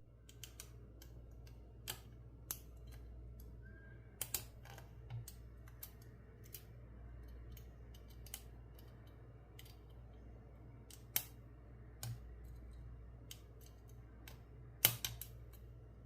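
Lock picks working the pins of a Cisa 50mm brass padlock: faint, irregular small clicks and ticks as the pins are picked and set, with a few louder clicks, over a low steady hum.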